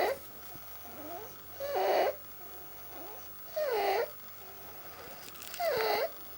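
A young child's inspiratory stridor at rest: a pitched, wavering noise on each breath in, about every two seconds, with quieter breaths out between. It is the sign of severe croup narrowing the upper airway.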